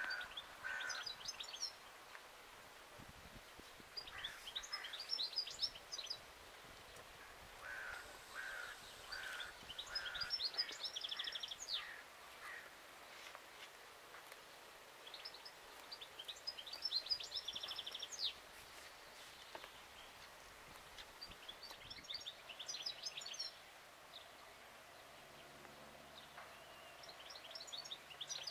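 A songbird singing a short, quick phrase of high chirping notes, repeated about every five to six seconds, over faint outdoor background noise.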